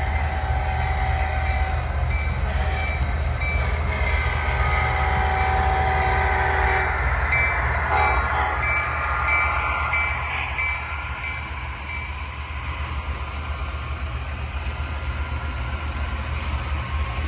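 Sound-equipped model diesel locomotive passing a grade crossing: a multi-note horn sounds in long blasts and a bell rings over a steady low rumble, with the horn and bell stopping about twelve seconds in.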